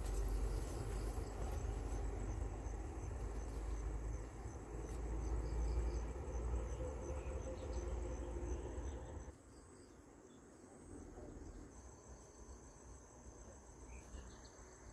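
Crickets trilling in a steady, high-pitched chorus. A low rumble sits under it for the first nine seconds or so, then drops away.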